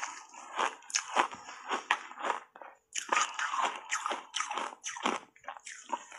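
Refrozen block ice coated in matcha powder being bitten and chewed: a quick run of sharp crunches, with a brief pause about halfway through.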